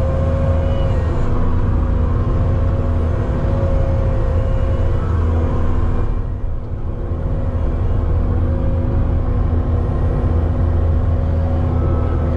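Pickup plow truck's engine running while the truck creeps along, heard from inside the cab as a steady low rumble with a faint steady whine. The sound dips briefly a little past halfway.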